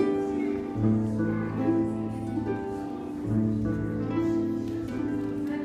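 Two lever harps playing a gentle waltz in duet: plucked melody notes over low bass notes that ring for about two seconds each.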